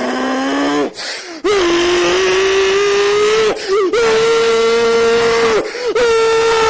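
A person's voice holding long, loud yelled notes. The first note rises, then after a short break a higher note is held for several seconds with brief breaths in between.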